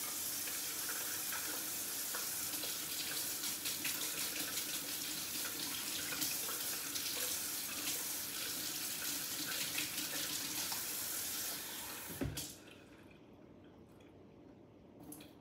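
Kitchen faucet running into the sink as cold water is drawn into a measuring cup: a steady rush of water that stops abruptly about twelve seconds in when the tap is shut off.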